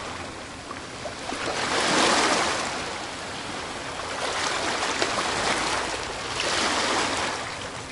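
Small waves washing and breaking on a lake shore, surging louder about three times.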